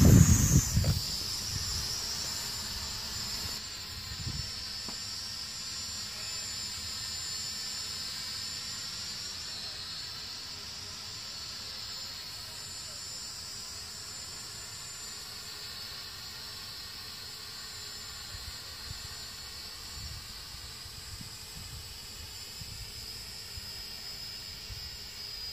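Hubsan H502e mini quadcopter's propellers running with a high whine that wavers slightly in pitch as it hovers; loud for the first second or so as it lifts off, then fainter as it climbs away and holds steady.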